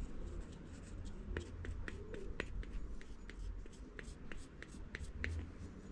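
Small, irregular clicks and light scrapes of a plastic Loctite bottle's nozzle and a steel chain sprocket being handled as Loctite is dabbed around the inside of the sprocket's bore, over a low steady hum.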